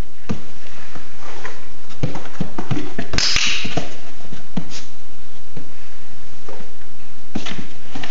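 A small puppy's paws tapping and scuffing on a cardboard box and foam floor mats while it takes treats from a hand. About three seconds in comes a sharp double click, like a training clicker pressed and released, marking a behaviour for reward.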